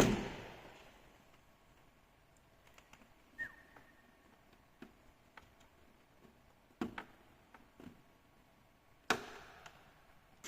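Hands working on car door trim and its plastic clips and connectors: a loud knock at the start, scattered light clicks, a brief squeak, then two more sharp knocks.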